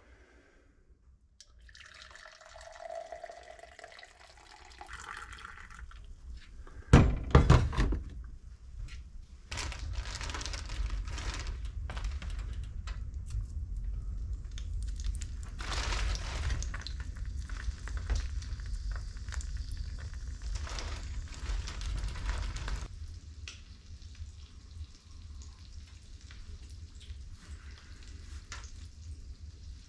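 Coffee poured from a carafe into a mug, rising in pitch as it fills. About seven seconds in come a few loud knocks. Then a long steady hiss with a low rumble, food frying in a pan on a wood cookstove, which drops to a quieter hiss past the two-thirds mark.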